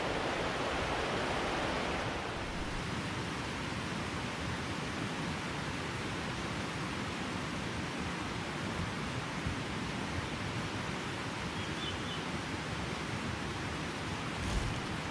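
Steady rush of a rocky mountain stream running high, a little louder for the first couple of seconds.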